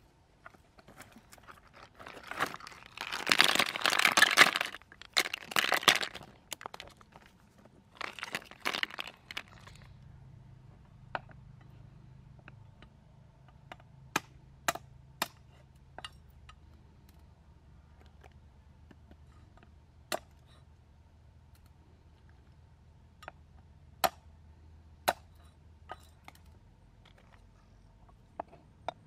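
Loud crunching and rustling on dry leaves and stones for a few seconds near the start and again briefly, then scattered sharp clicks of snail shells knocking against stones.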